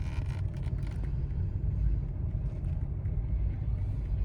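Steady low rumble of a car on the move: road and tyre noise, with no distinct knocks or tones.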